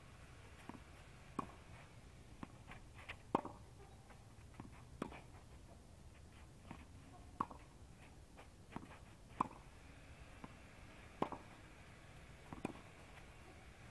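Tennis ball being struck by rackets and bouncing on a clay court during a rally: a string of sharp pops, one every second or two.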